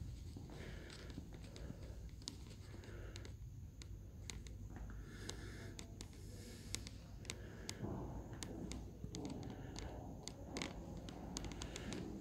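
Quiet room tone with a low rumble, faint footsteps and scattered light clicks of handling noise from a hand-held phone being carried around.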